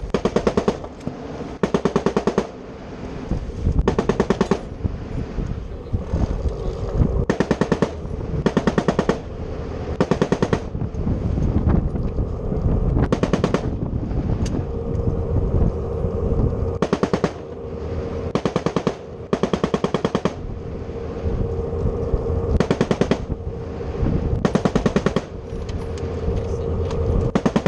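M240 machine gun firing about a dozen short bursts of several rapid rounds each, one to three seconds apart, over a steady low hum from the boat.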